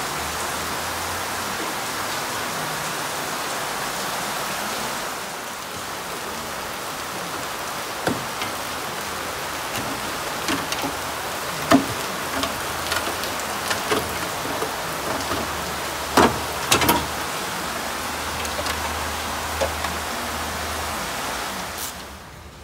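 A steady rushing hiss like rain, with scattered light clicks and knocks from about eight seconds in as an aluminium A/C condenser is handled. The hiss drops away near the end.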